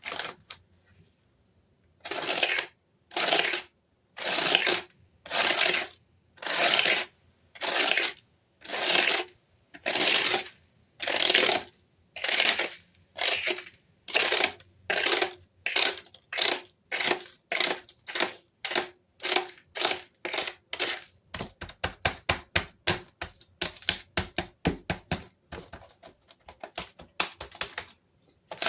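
A Dell keyboard being scrubbed in steady, rhythmic strokes, about one a second at first. Past the middle the strokes turn short and quick, several a second.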